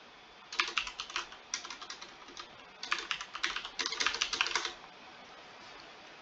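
Computer keyboard typing in four short bursts of keystrokes, stopping about five seconds in.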